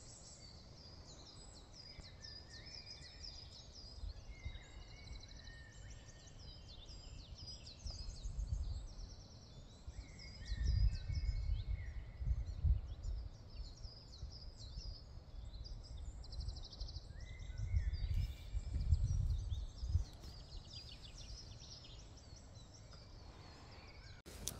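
Small birds singing, with repeated short high chirping phrases. Several low rumbles on the microphone are the loudest sounds, about ten to thirteen seconds in and again around eighteen to twenty seconds.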